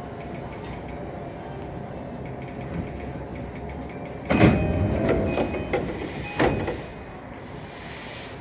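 Commuter train running slowly with a steady hum as it comes to a stop at a station platform. About four seconds in, the passenger doors slide open with a loud rush and a sharp knock, and a second knock comes about two seconds later.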